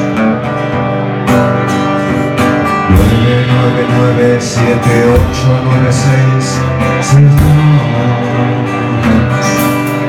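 Live rock band playing an instrumental passage: guitar over bass and drums, with regular drum and cymbal strikes.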